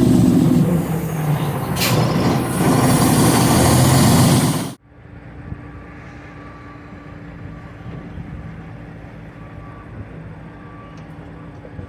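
Heavy wind buffeting the microphone over an idling truck engine. It cuts off suddenly about five seconds in, leaving a much quieter steady engine hum.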